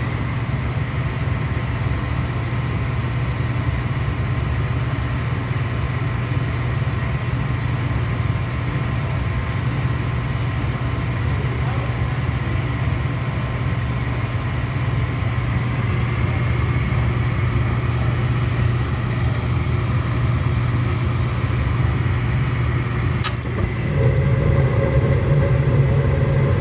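Furnace running with a steady low hum and faint whining tones. About 23 seconds in there is a sharp click, then the sound turns louder for the last few seconds, with an added higher droning tone.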